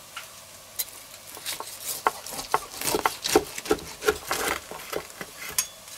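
Carving knife sawing through the crisp, charred crust of a roast pork rack on a wooden board, giving a run of irregular crackling crunches that thicken about a second and a half in.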